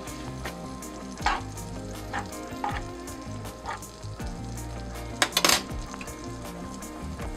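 Butter with salt and pepper sizzling as it melts in a hot nonstick frying pan, with a metal fork clicking and scraping against the pan now and then as it stirs. A louder clatter comes about five seconds in, as the fork is set down.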